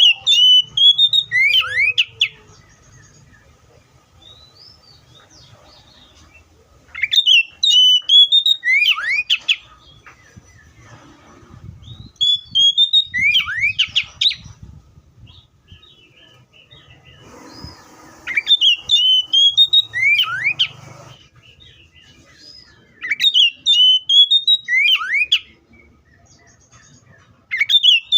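Oriental magpie-robin singing: loud whistled song phrases repeated about every five seconds, each opening with a rising note, then a quick run of bright notes and a few fast downward sweeps.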